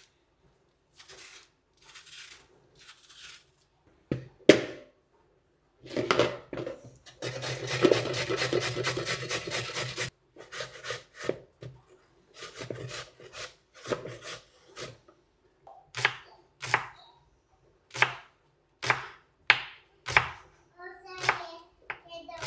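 Knife cutting carrot and apple on a wooden chopping board in irregular strokes, with a run of fast, even strokes about seven seconds in that lasts some three seconds.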